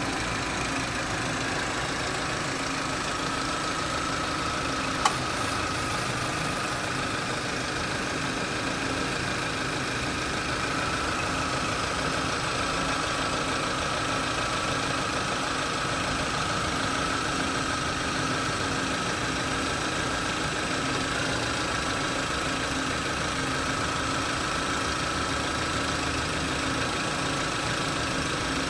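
Car engine idling, heard close up under the bonnet, with a steady high whine running over it: the odd noise the engine is making. One sharp click comes about five seconds in.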